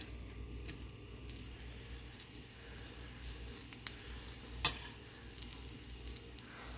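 Egg sizzling as it fries on a hot griddle pan, with two sharp clicks about a second apart near the middle as a metal spatula knocks against the pan.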